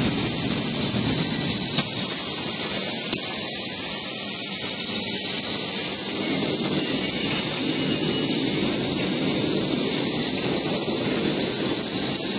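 Steady loud hiss over a low rumble of workshop noise, with two sharp clicks a little over a second apart in the first few seconds.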